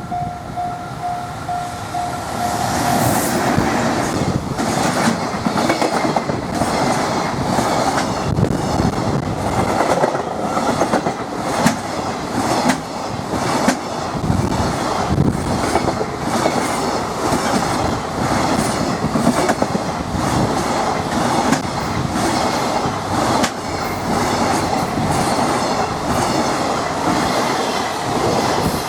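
JR Freight container train, EF210 electric locomotive with Koki container wagons, running through a level crossing: a long, loud run of wheels clattering over the rail joints as wagon after wagon goes by. The crossing's warning bell rings steadily at the start, is drowned out about three seconds in as the train arrives, and is heard again at the very end.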